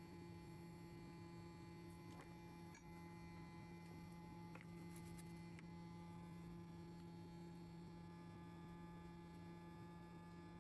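Steady low electrical hum, with a few faint clicks a couple of seconds in and again about four and a half seconds in.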